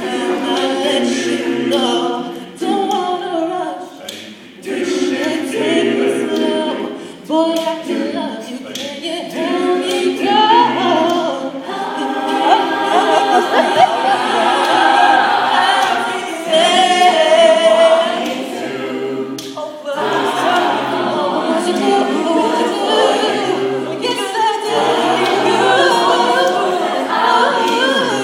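A cappella choir of mixed voices singing, with a male lead singer on a handheld microphone over the group's backing voices.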